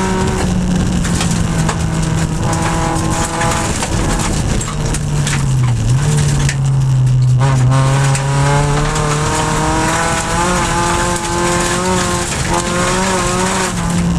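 EG6 Honda Civic rally car's engine, heard from inside the cabin, running hard at high revs; its pitch dips about halfway through, then climbs steadily under acceleration. Gravel clatters against the car throughout.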